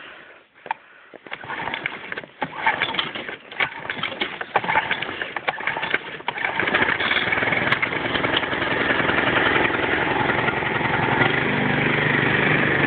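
Kawasaki engine of a John Deere 14SB push mower cold-starting on choke after two months unused: it catches and fires unevenly for a few seconds, then settles into a steady run about six and a half seconds in.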